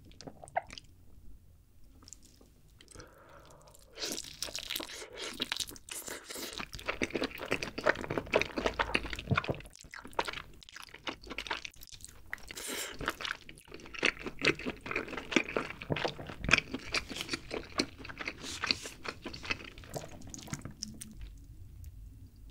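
Close-miked biting and chewing of a sauce-glazed grilled chicken drumstick, with dense crackling chews. The chewing starts about four seconds in and comes in two long spells with a short pause between them.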